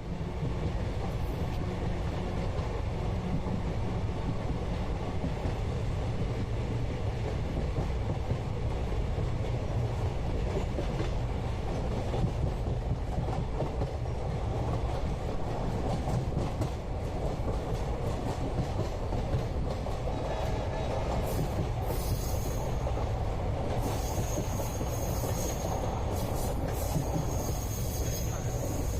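Moving Indian passenger train heard from inside the carriage: a steady rumble of wheels on the rails. In the last several seconds, high-pitched squealing and hiss join the rumble.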